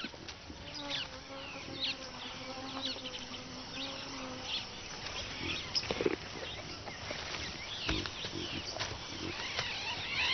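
Natural bush soundscape: a fly buzzing steadily for the first few seconds, birds chirping throughout, and a couple of soft knocks later on.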